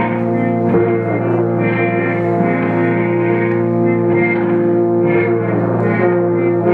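Free-improvised music: electric guitar played through effects over steady, sustained drone tones, with a few pitches gliding downward.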